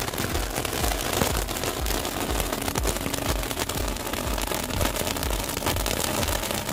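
Hand-held Supreme brand colour deluxe candle firework burning, a steady hissing crackle of spraying sparks.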